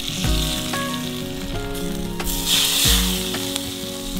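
Brown butter braised cabbage sizzling in a hot skillet as it is served out onto plates, the hiss swelling a little past the middle, over background music.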